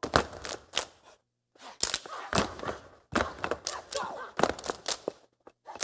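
Step team stepping in unison: sharp stomps on the wooden stage, claps and body slaps in quick rhythmic runs, with short pauses between the runs.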